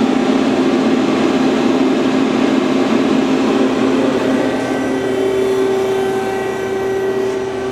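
Mazak Quick Turn 8 CNC lathe running under power: a steady mechanical hum with several fixed tones, the pitch pattern shifting about halfway through and the level easing off near the end.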